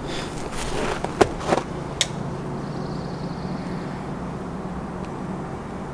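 Steady low background hum, with three sharp clicks or knocks between about one and two seconds in.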